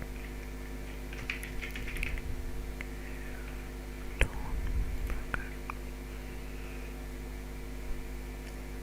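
Steady low electrical mains hum with a few faint scattered clicks, the sharpest about four seconds in.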